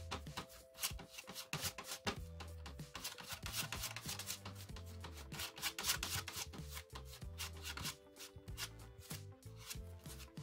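Metal palette knife scraping and spreading thick plaster on a plastic board in quick, repeated strokes, over quiet background music.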